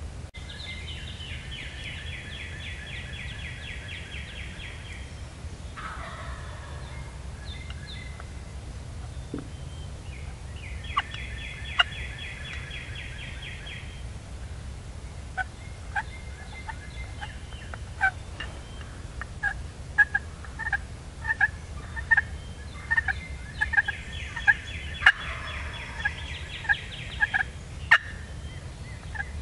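Wild turkey tom gobbling three times: a rapid rattling gobble just after the start, another about eleven seconds in, and a third near the end. From about halfway a run of short, sharp notes repeats roughly every half second.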